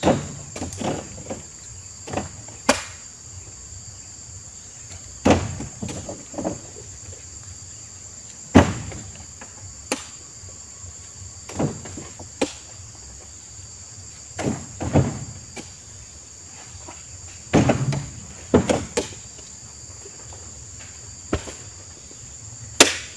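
Oil palm fruit bunches being loaded by hand with a pole, thudding into a wooden-sided truck bed one after another at irregular intervals, about one every second or two. A steady high insect drone runs underneath.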